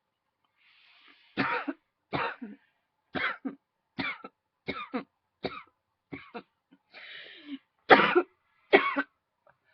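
A woman coughing in a run of about nine short coughs, each with a double push. She draws a breath in before the first and again before the last two, which are the loudest. The coughing is brought on by a tickle in her throat.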